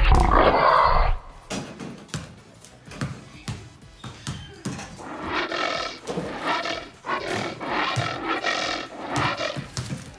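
Monster-style animal roars: a loud roar over the first second, then a run of growling roars about once a second through the second half.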